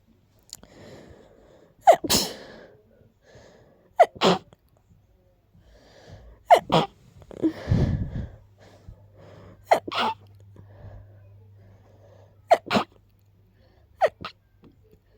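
A rapid series of sharp, stuffy sneezes, one about every two seconds, from a person who is sick with a blocked nose.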